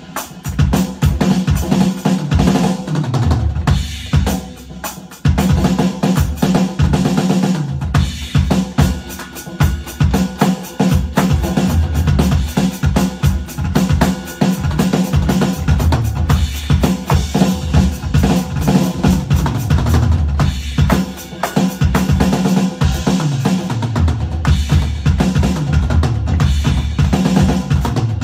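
Electronic drum kit played continuously as a fast warm-up pattern, with dense snare and bass drum strokes. There is a brief quieter patch about four seconds in.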